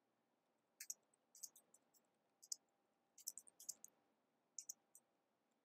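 Keys of a Battop folding Bluetooth keyboard being typed on: faint, short key clicks that come irregularly in quick clusters.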